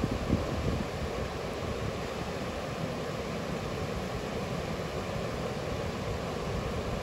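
Steady rush of river water, with wind buffeting the microphone in uneven low gusts.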